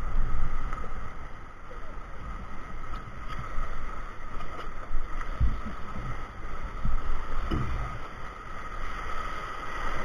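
Rushing whitewater of river rapids around an inflatable raft, with paddle strokes in the water and irregular low thumps of water and wind buffeting the microphone, the strongest about halfway through and again a couple of seconds later.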